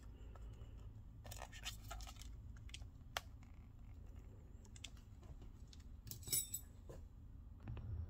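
Faint small clicks and scratching of fingers working flex-cable connectors loose from a tablet's charging port board, with a short run of clicks about six seconds in, over a low steady hum.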